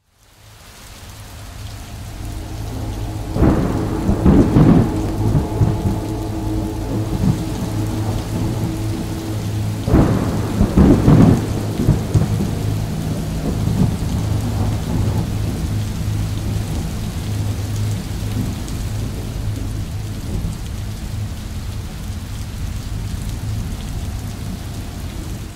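Thunderstorm: steady rain fading in over the first couple of seconds, with two loud thunderclaps that rumble for a second or two each, about three and a half seconds in and about ten seconds in, over a steady low drone.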